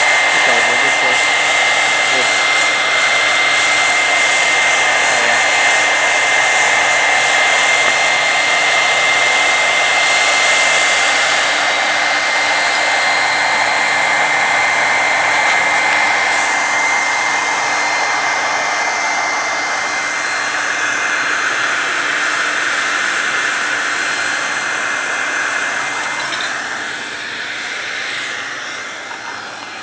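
Air blower forcing air into a homemade metal-melting furnace: a steady rush of blown air and fire with a high, even whine. It grows gradually quieter over the last several seconds.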